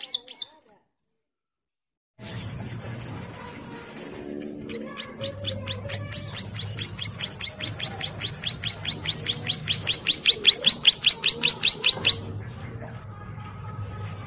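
Caged prinia (ciblek) singing a rapid, even series of sharp high notes, about five to six a second. The run builds in loudness and stops abruptly about twelve seconds in. The sound drops out completely for a moment near the start.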